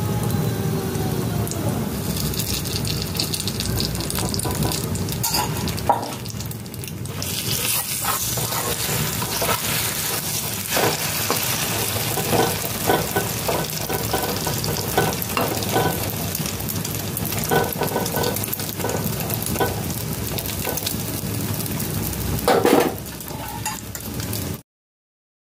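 Egg-coated bread toast sizzling in oil in a frying pan, with scrapes and taps of a spoon and a spatula against the pan. The sound cuts off abruptly near the end.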